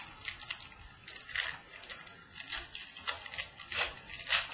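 Trading-card wrappers and cards being handled, crinkling and rustling in short, irregular bursts, with the loudest crinkle near the end.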